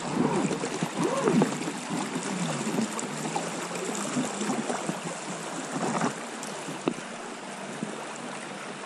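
Shallow river riffle rushing and gurgling around an inflatable boat drifting through it, with bubbling gurgles strongest in the first couple of seconds. One sharp tap about seven seconds in.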